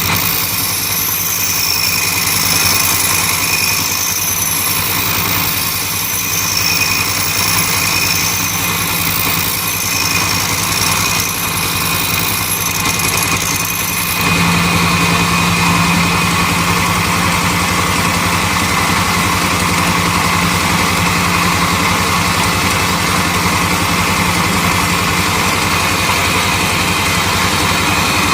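Bench grinder running loudly and steadily while its wheel grinds the edge of a steel blender blade, with a steady motor hum under a hiss of grinding. About halfway through the grinding gets louder and harsher, as the blade is pressed harder to the wheel.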